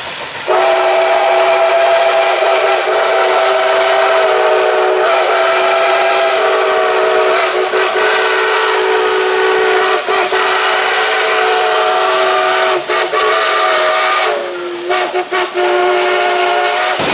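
Five-chime whistle of locomotive no. 620 blowing one long, steady chord over a hiss. Near the end it dips slightly in pitch and breaks into a few short stutters, then sounds again before cutting off.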